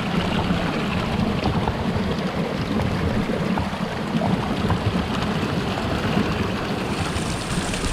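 Stream water flowing and gurgling under a frozen ice sheet, a steady rushing with small scattered clicks, cutting off suddenly at the end.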